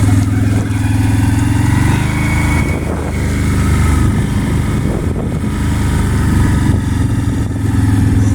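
Small engine of a farm vehicle running steadily at a low, even pitch. It eases off and roughens for a second or two about a third of the way in, then picks up again near the end.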